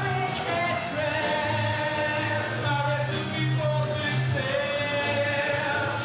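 A song: a voice singing long held notes over steady band backing.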